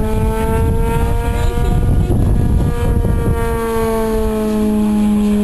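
Electric radio-controlled P-51D Mustang model flying overhead: its Predator electric motor and propeller give a steady, multi-toned hum that sinks slightly in pitch past the middle, over a low rumble.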